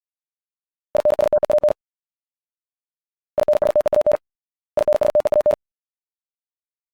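Morse code at 70 words per minute: a single steady-pitched tone keyed in very rapid dits and dahs. It comes in three short bursts of under a second each, each about a word long, with silent gaps between them.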